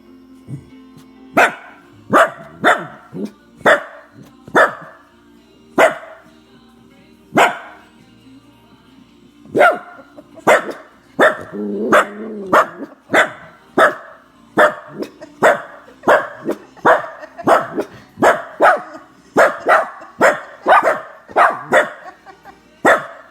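A dog barking repeatedly in short, sharp barks, spaced out at first and then coming quickly, about two a second, through the second half.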